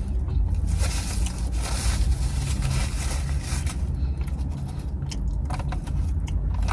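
Close-up eating sounds: chewing and rustling with scattered sharp clicks, over a steady low rumble.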